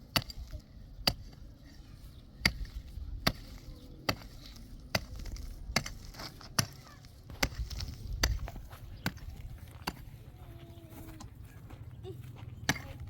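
Steady, regular blows of a hand tool striking something, about one every 0.8 seconds, stopping for a couple of seconds near the end before starting again.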